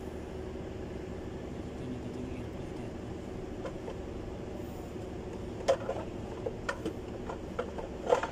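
Scattered plastic clicks and knocks as a pleated panel air filter is handled and set into its plastic airbox, the loudest a little past halfway and near the end, over a steady background hum.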